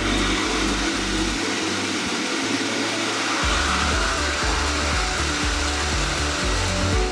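High-velocity pet dryer blowing a steady, loud stream of air through a rough collie's thick coat to loosen the undercoat, with background music underneath.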